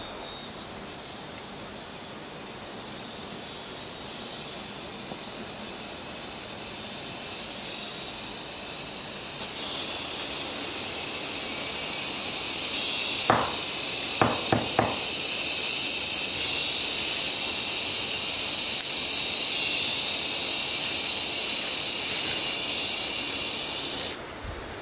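A chorus of forest insects droning at a high pitch, slowly swelling and cutting off suddenly near the end. A few sharp snaps come a little past halfway.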